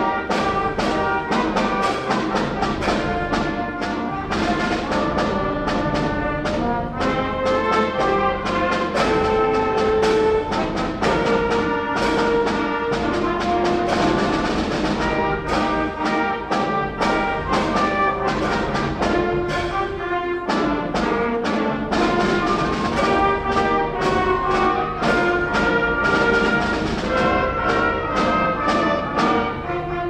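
Middle school concert band playing live: brass and woodwinds holding full, sustained chords and melody over a steady beat of sharp percussion hits.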